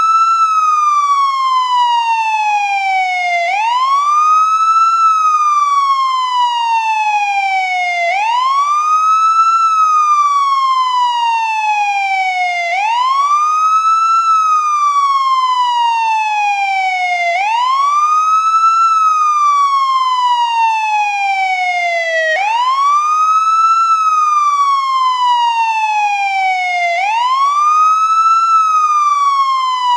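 American police siren on the wail setting. It rises quickly, holds briefly at the top, then falls slowly, repeating evenly about once every four and a half seconds.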